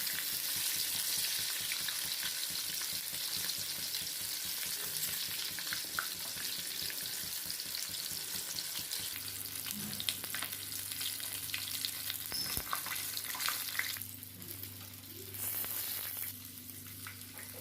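Coated chicken pieces deep-frying in hot oil on a medium flame: a steady sizzle with small scattered pops, which drops away sharply about fourteen seconds in. A low steady hum joins about halfway through.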